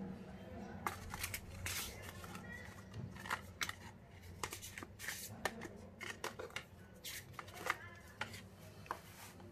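Paper and thin cardboard being handled: a folded paper user manual and a cardboard box insert rustle and tap in a string of small irregular clicks. A steady low hum runs underneath.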